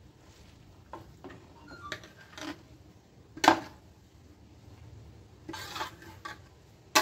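Grated raw mango being tipped and scraped off a plate into a non-stick pan: soft scrapes and rustles with a few knocks of the plate against the pan, the loudest about three and a half seconds in.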